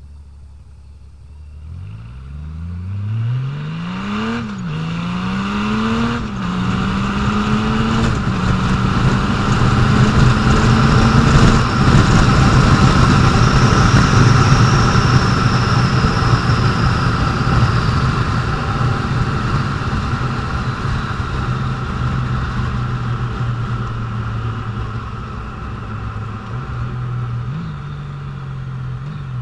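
2014 Honda Valkyrie's flat-six engine pulling away and accelerating through the gears, its note rising and dropping back at each upshift, three shifts about two seconds apart. It then runs steadily at speed under heavy wind noise on the microphone, and the engine note falls as the bike slows near the end.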